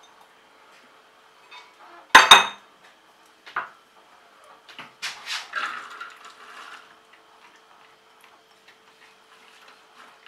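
Kitchen bowls being handled while beans and lentils are tipped into a food processor bowl: a loud clatter of dishes about two seconds in, then a spatula scraping and knocking against a ceramic bowl as the lentils are scraped out.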